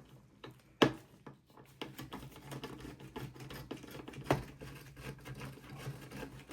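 Phillips screwdriver backing screws out of a desktop PC's metal case: fast, light clicking and scraping, with a sharper click about a second in and another past four seconds.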